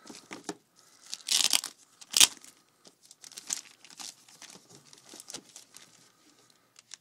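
Laptop packaging crinkling and rustling as it is handled, with a louder burst about a second in and a sharp click just after two seconds.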